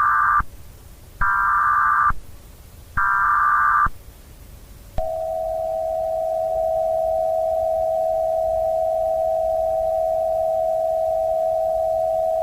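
Emergency Alert System alert tones: short bursts of digital data tones, each about a second long and a second apart, then from about five seconds in a long, steady, unbroken attention tone.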